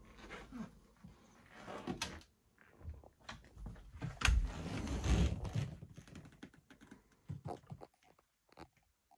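Handling noise from a handheld camera being carried through a boat's cabin: irregular clicks, knocks and rustling. The heaviest stretch is a low thump and rumble about four to five seconds in, and it thins to faint ticks near the end.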